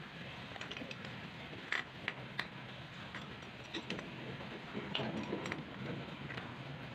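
Scattered light metallic clicks and taps of a pipe wrench gripping and turning a brass swing check valve as it is tightened onto a plastic pipe fitting.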